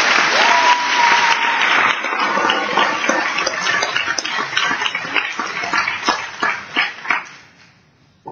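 Audience applauding in a large hall: dense clapping that thins out into scattered single claps and stops about seven seconds in.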